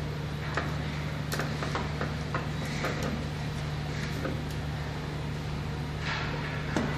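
Light clicks and taps from wires and fingers working the screw terminals of a rotary changeover switch, irregular and scattered, over a steady low hum.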